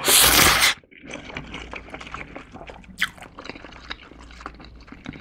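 A loud slurp of a mouthful of springy instant ramen noodles lasting under a second, then close-miked chewing: soft, wet, sticky smacks and clicks of the chewy noodles.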